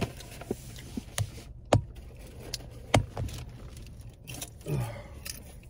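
Steady low rumble of a car, with a few sharp clicks and knocks at the start, just under two seconds in and about three seconds in.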